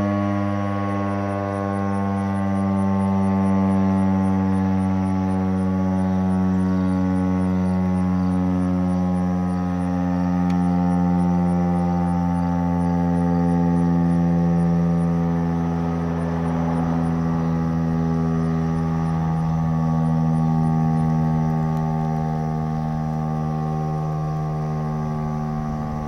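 Federal Signal STH-10 outdoor warning siren, with a Valley motor, winding down after its 2-minute alert. It sounds a low, many-toned chord that slowly falls in pitch, swelling gently in loudness.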